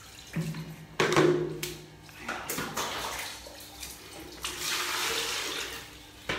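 Rinse water being changed in a plastic bucket: water splashing and being ladled with a plastic dipper, with a few knocks of plastic. Water runs steadily for about a second and a half near the end, followed by a sharp knock.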